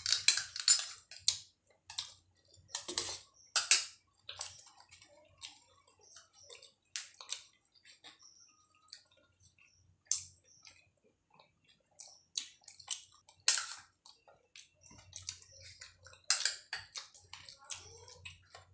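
Eating sounds: two people chewing and smacking on luchi with potato curry and ghugni, an irregular string of wet clicks and smacks, loudest near the start, about three to four seconds in, and again near the end.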